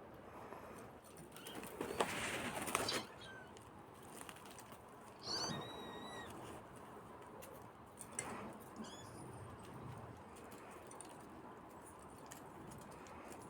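A kitten scrambling with a rustle about two seconds in, then giving short high-pitched mews twice, once after about five seconds and again near nine seconds.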